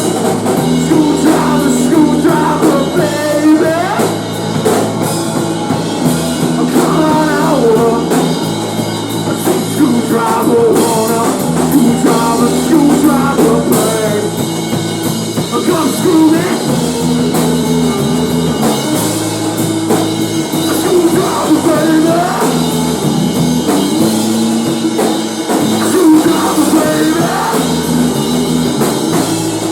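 Grunge-tinged rock band playing full out: drum kit, bass and electric guitars, with a lead line sliding up and down in pitch over the chords.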